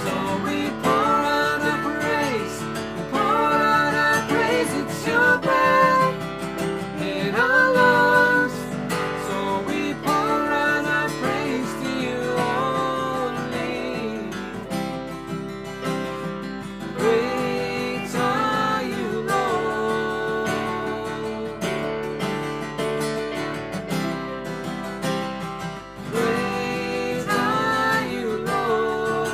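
A man and a woman singing a worship song together, accompanied by acoustic guitar and keyboard.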